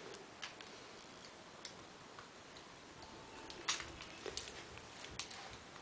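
A few faint, irregular plastic clicks as a baby chews and handles a plastic teether toy with rings.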